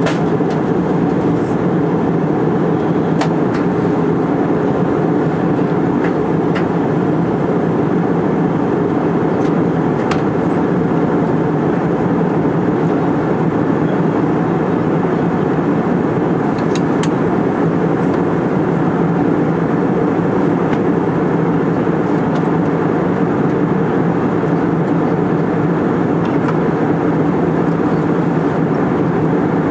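Steady cabin drone of an Airbus airliner in flight, the jet engines and airflow heard from a window seat, with a few faint clicks.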